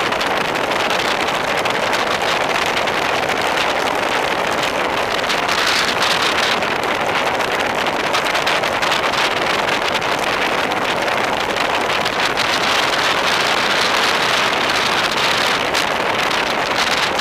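Steady wind rushing over a handlebar-mounted camera's microphone on a fast road-bike descent.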